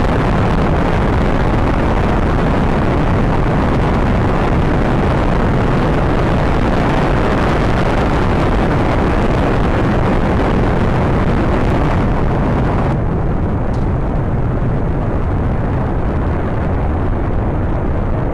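Rocket engine exhaust noise during a launch, loud and steady, with a deep low end.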